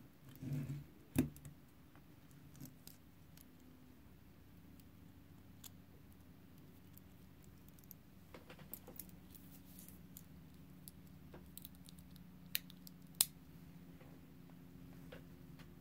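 Stainless steel watch bracelet of a San Martin SN017-G dive watch being handled and put on, with light metallic jingling and clicks: a sharp click about a second in, scattered small clicks, and two sharp clicks near the end. A faint steady hum runs underneath.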